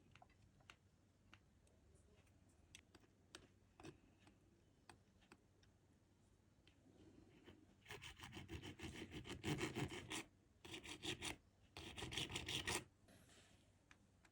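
Small hand file rasping on an eyeglass frame: three runs of quick back-and-forth strokes in the second half, with a few light clicks and taps before them.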